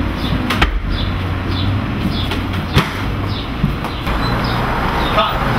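Steady outdoor background hum with a small bird chirping about twice a second. Two sharp knocks come through, the louder one about three seconds in.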